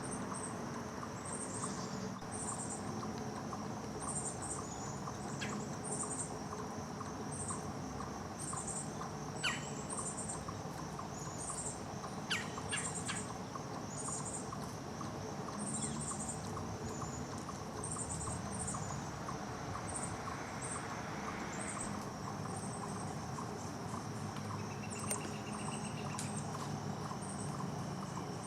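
Eastern chipmunk giving its alarm call: short, high-pitched chips repeated about once a second, on and on. A steady high insect drone runs beneath.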